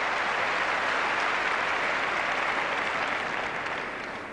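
Tennis arena crowd applauding a winning shot that landed on the line. The clapping is steady, then dies away near the end.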